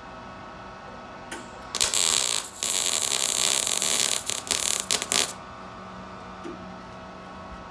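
MIG welder arc crackling and hissing as a weld is laid on exhaust tubing, in a short burst followed by a longer run of about three seconds that sputters out in brief flickers.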